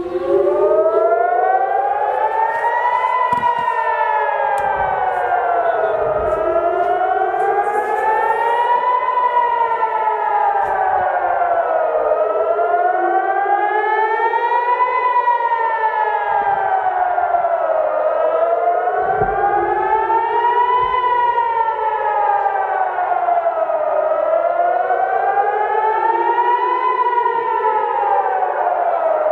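Civil-defense-style siren wailing loudly, its pitch rising and falling slowly and evenly and peaking about every six seconds.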